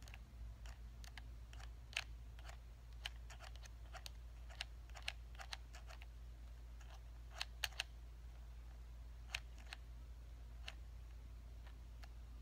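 Light, irregular clicks of game-controller buttons being pressed, over a low steady hum.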